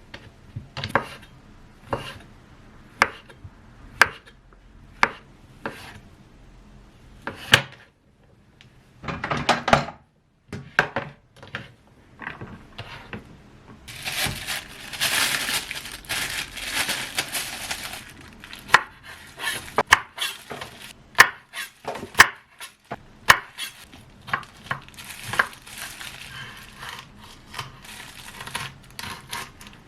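Kitchen prep sounds: a knife knocking on a cutting board about once a second, then a quicker run of chopping, followed by a few seconds of steady hiss-like noise and scattered clicks and knocks of utensils and dishes.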